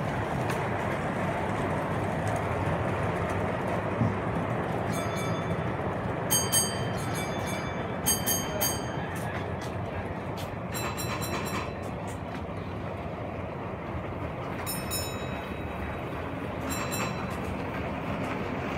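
Model trains running on a model railway layout: a steady running rumble over the track, with several short, high metallic clinks scattered through it.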